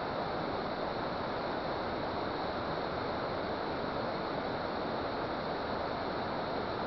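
Water rushing steadily at a dam, an even unbroken hiss of flowing water.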